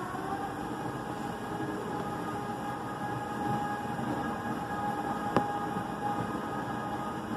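Christ Genius gantry car wash running, its rotating brushes working over a car: a steady motor whine over a rushing, splashing haze. There is one sharp click about five seconds in.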